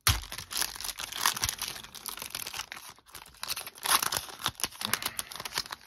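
Foil hockey card pack wrapper being torn open and crinkled by hand, with louder crackles about a second in and again near four seconds.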